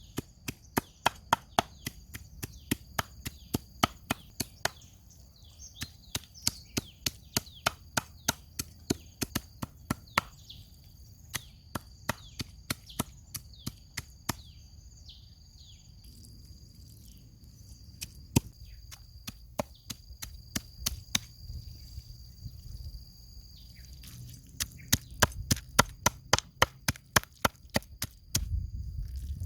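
Knife chopping on a wooden cutting board in runs of sharp strokes, about two or three a second, with short pauses between runs. The strokes come faster near the end.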